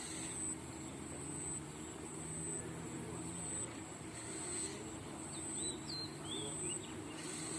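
A small engine running with a steady low hum. A high insect buzz pulses on and off about once a second over it, and a bird chirps a few times about six seconds in.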